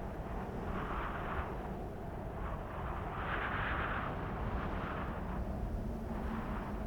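Cold winter wind blowing, a steady low rumble with gusts that swell and fade, the strongest a few seconds in.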